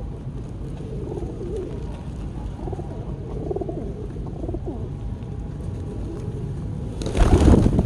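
Pigeons cooing, a run of low, rolling calls repeated over and over. A loud, short rush of noise cuts in near the end.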